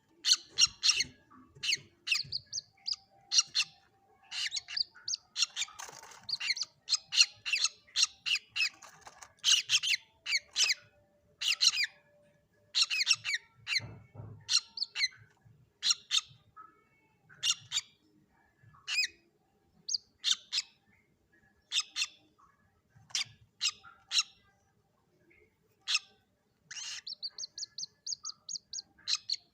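Common moorhen (mandar batu) chicks calling: a long run of short, sharp, high-pitched peeps at uneven intervals, with a fast, evenly spaced series of notes near the end.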